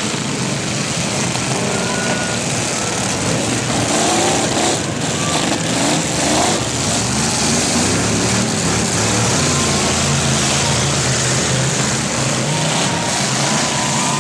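Engines of many demolition derby cars running and revving together in a dense, steady din, with several engines rising and falling in pitch in the middle.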